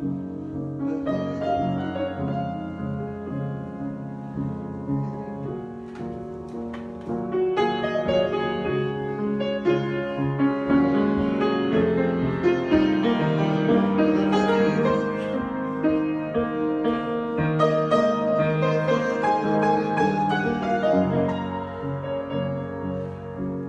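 Solo piano improvisation, chords with a melody over them, growing louder about seven seconds in.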